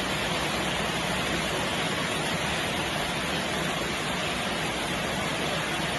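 Steady rain falling, an even continuous hiss with no single drops standing out.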